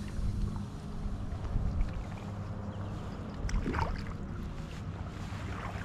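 Water sloshing and splashing as a hooked Atlantic salmon thrashes at the surface beside a landing net, with one sharper splash about three and a half seconds in. A low rumble of wind on the microphone runs underneath.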